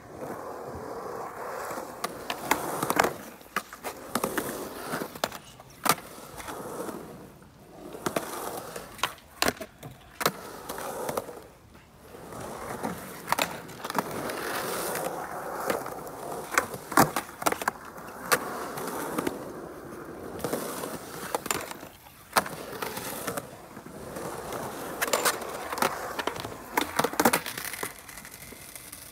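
Skateboard wheels rolling over a concrete skatepark, rising and falling as the board carves. Many sharp clacks of the board popping and landing cut through the rolling.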